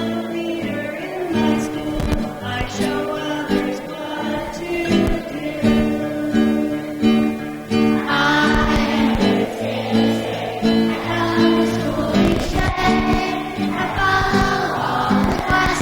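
Acoustic guitar strummed in steady chords while a group of children sings along, the singing growing much stronger about halfway through.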